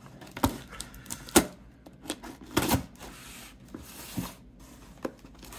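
A metal utility knife and a cardboard box being handled: sharp clicks about a second apart, with light scraping between.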